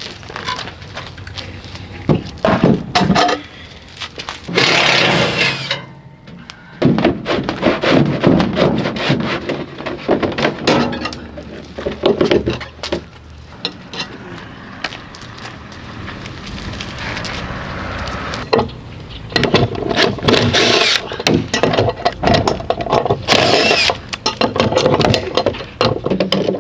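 Steel toolbox mounting bracket being unbolted and taken apart: tools and metal parts clinking and clanking, with a few louder bursts of rattling noise, the first about five seconds in.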